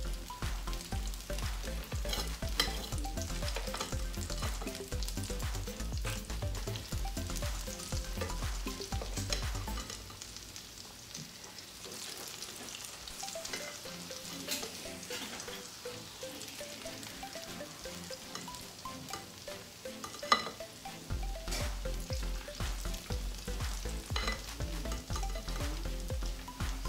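Akara bean fritters deep-frying in hot oil in a shallow pan: steady sizzling and crackling. Two sharp clicks stand out, one a couple of seconds in and one near the end.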